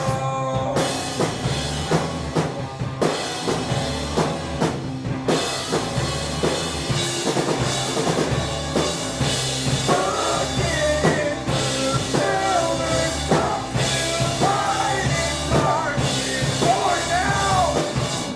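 Live indie rock band playing: drum kit, bass and guitars with a sung vocal line in the second half. The song ends abruptly right at the end.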